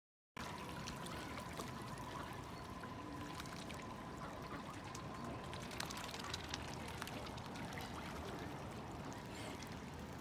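Water lapping and splashing around a crowd of mute swans and mallards swimming close together, with many small scattered clicks and splashes over a steady rush. It starts after a brief silence, and a faint steady tone runs through the first half.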